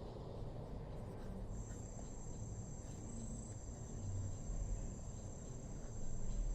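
A steady high-pitched whine or trill sets in about a second and a half in and holds one pitch, over a low rumble.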